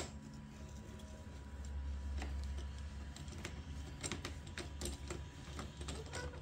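Scattered light clicks and ticks of metal and plastic as a bar-end mirror is screwed into the end of a motorcycle handlebar with a long screwdriver, the clicks coming thickest a little past the middle, over a low steady hum.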